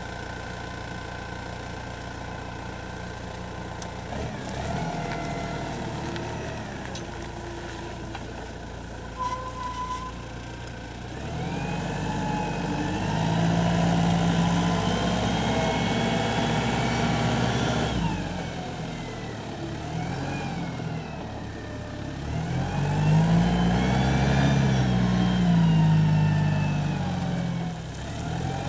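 Samsung SF20D forklift's diesel engine running at a steady low speed, then revving up and back down twice. Each time the pitch rises, holds for a few seconds and falls back.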